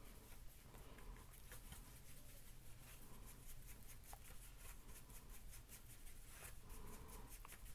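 Faint, repeated soft scraping of a small flat paintbrush mixing blue and white paint on a paper plate.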